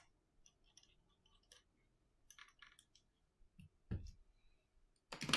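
Small clicks and scratches of a precision screwdriver turning the tiny bottom screws of an iPhone 8, followed by a dull thud as the phone is handled on a silicone mat and a louder, brief handling clatter near the end.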